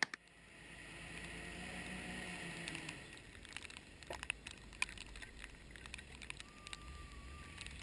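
Tow truck's engine running faint and distant while it plows snow, a low rumble with a pitched drone in the first few seconds, then scattered small ticks and clicks.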